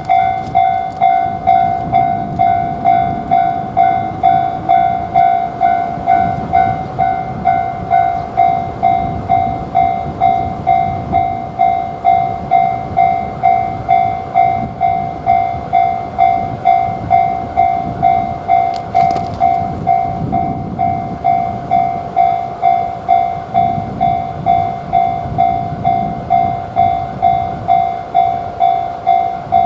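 Japanese level-crossing alarm ringing its "kan-kan" warning tone, struck in a steady, even rhythm, over the low rumble of a train passing on the line.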